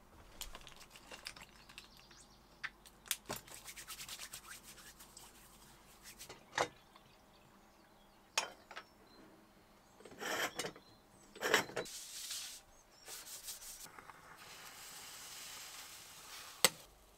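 Small kitchen handling sounds while a stovetop moka pot is filled and set up: scattered clicks, short scrapes and metal knocks. Near the end comes a steady hiss as the moka pot brews, followed by a single sharp click.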